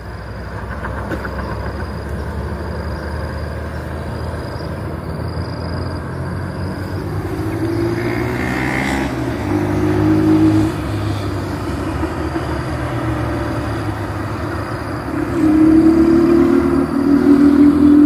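Road traffic passing along a junction: a steady rumble of engines and tyres. It swells around the middle and grows louder again near the end as heavier vehicles go by, with no horns sounding.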